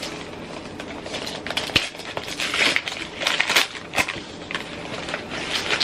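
Packaging crinkling and crackling in the hands as a gift is unwrapped, with irregular handling clicks.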